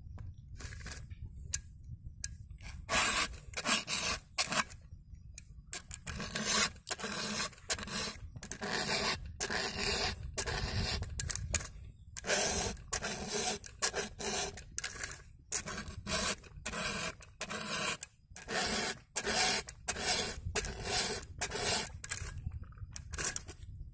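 A file rasping across chainsaw chain cutters in repeated strokes, about two a second, as the chain is sharpened by hand.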